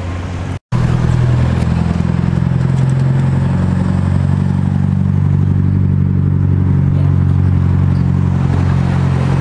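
A car engine running steadily at one low, even pitch, after a brief drop-out about half a second in.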